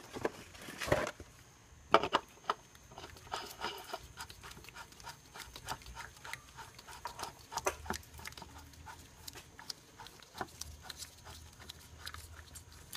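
Irregular small clicks and knocks of a new oil filter being fitted into the plastic filter housing of an Audi 2.0T TSI engine and the housing cap being threaded down by hand, with one sharper knock about two seconds in.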